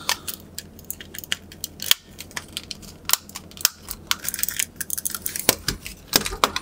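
Plastic shell of a ROCCAT Kain 202 gaming mouse being pressed back together by hand during reassembly: an irregular run of small, sharp plastic clicks and creaks.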